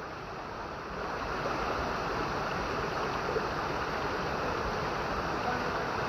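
Steady rushing water of a small waterfall pouring into a rock pool, an even hiss with no breaks.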